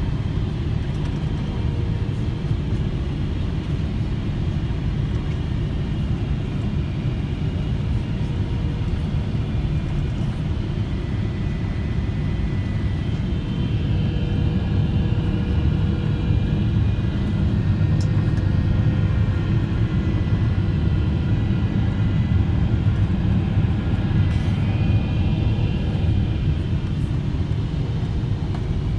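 Boeing 777 cabin noise during the landing: a steady low rumble of engines and airflow heard from inside, with faint steady whining tones above it, growing a little louder about halfway through.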